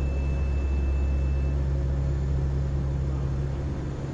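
Steady low engine drone, as heard inside an aircraft cabin, with a faint thin high whine that stops about a second and a half in.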